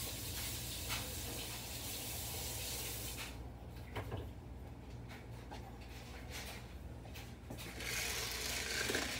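Kitchen tap running as the lid of a popcorn jar is rinsed under it, then turned off about three seconds in, followed by a few light knocks of the lid being handled. A second short stretch of hissing noise comes near the end.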